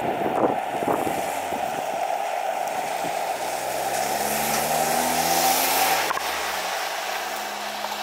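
Electric freight train running away from the listener in heavy rain, its wheels clattering over the rails in the first second or so. A low hum then slowly drops in pitch and cuts off about six seconds in, over a steady hiss of rain.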